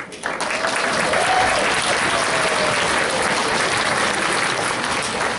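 Audience applauding loudly, starting suddenly and holding steady, with one drawn-out voice calling out over it.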